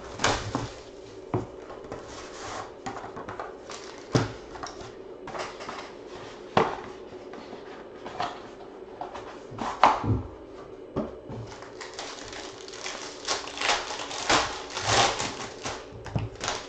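Hands unwrapping and opening a sealed trading-card box and handling cards: irregular crinkles, rustles and small clicks of plastic wrap, foil and cardboard, with a faint steady hum underneath.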